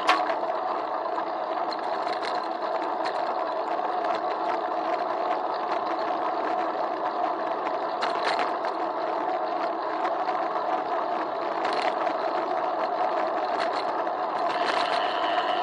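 Muffled riding noise of a bicycle rolling over a paved street, picked up through an action camera's sealed waterproof housing on the handlebars: a steady dull rumble with a few sharp clicks from bumps, one right at the start and three more later.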